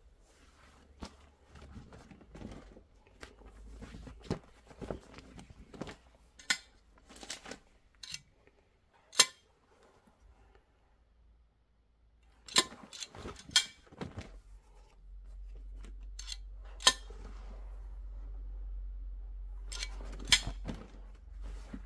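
Soft rustling of suede goatskins being handled, broken by several sharp clicks and snaps, the loudest about nine seconds in. A low steady hum comes in about halfway.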